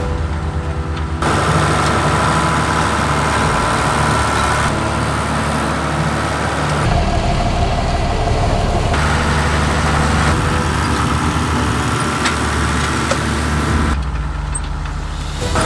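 Schlüter Compact 950 V6 tractor's diesel engine running steadily under working load while pulling a tine harrow, the sound changing abruptly several times as the shots change.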